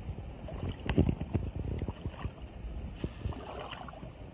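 Wading steps in shallow water over a cobble riverbed: irregular splashes and sloshing with stones knocking underfoot, loudest about a second in.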